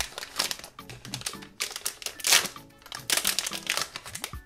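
Foil blind-box bag crinkling and rustling in the hands as a vinyl figure is pulled out of it, in many short irregular strokes, over light background music.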